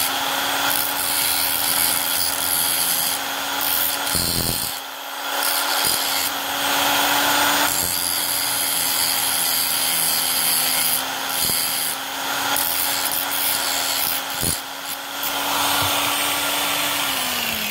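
Electric angle grinder running with its cutting disc grinding a small metal piece held against it: a steady motor whine under a harsh grinding hiss that swells and dips as the metal is pressed on and eased off. Near the end the whine drops in pitch as the grinder is switched off and spins down.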